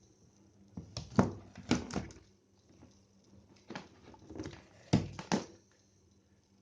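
A series of sharp clicks and knocks from handling things on a workbench, about eight in two clusters, over a faint steady low hum.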